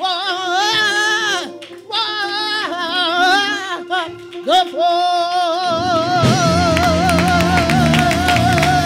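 Gospel lead vocalist singing solo into a microphone with strong vibrato, in short phrases with brief breaks. About six seconds in she holds one long note as a low instrumental bass line and steady hand claps come in underneath.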